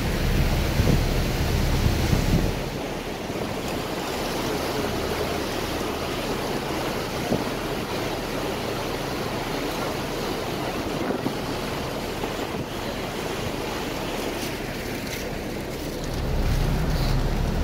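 Wind rushing over the microphone on the open deck of a moving ferry, over a steady wash of water. Heavy low buffeting fills the first couple of seconds and returns near the end.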